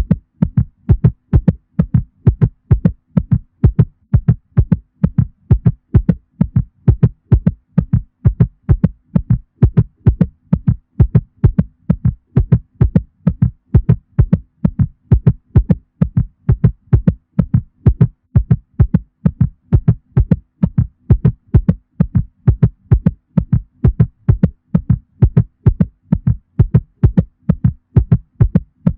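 Heartbeat sound effect presented as a mother cat's heartbeat: low thumps beating in a steady, even rhythm of about two a second, over a faint steady low hum.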